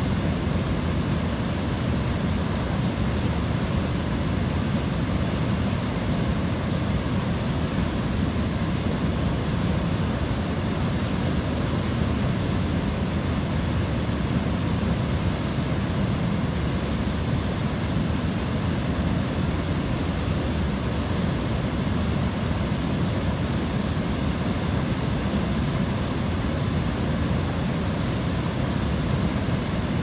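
Steady rush of a swollen, muddy river pouring over a low stepped weir, even and unbroken, with most of its weight deep and low.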